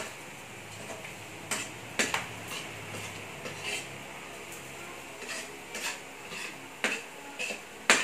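Metal ladle clinking and scraping against a stainless steel wok while stirring sliced hot dogs as they fry, in irregular clanks about once a second.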